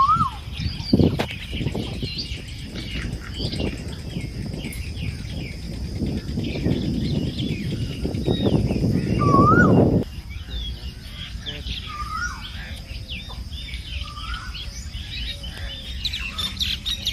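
Small birds chirping and twittering continuously, with a louder rising-and-falling whistled call at the start and again about nine seconds in. A low rumbling noise underlies the first ten seconds or so and cuts off abruptly.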